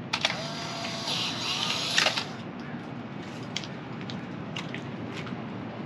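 Polaroid Sun 660 Autofocus instant camera taking a picture. The shutter clicks, then the camera's motor whirs for about two seconds as it ejects the print, and it stops abruptly.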